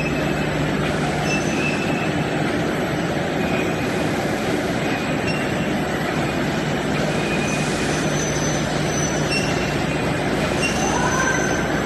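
Pet biscuit production-line machinery running steadily, with its curved conveyor belts and their gear motors: a dense mechanical din over a low hum, with faint short high squeaks now and then.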